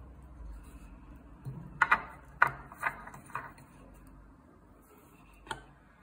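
A handful of sharp metallic clicks and clacks as a metal record clamp is fitted onto the turntable spindle of a Columbia AJ disc phonograph, the first two close together, then a single click near the end.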